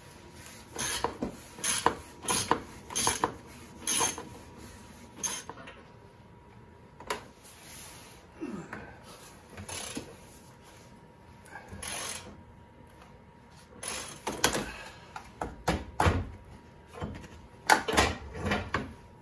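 Metallic clicks and clatter of a socket ratchet and hand tools loosening the bolts of a Ford F-150's factory tow hook, in bursts with short pauses between.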